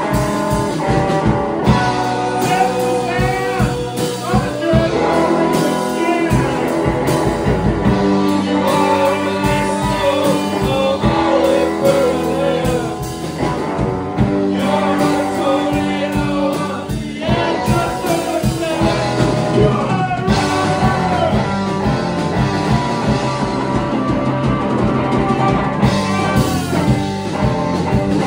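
Punk band playing live: electric guitar, bass guitar, drums and keyboard, with singing.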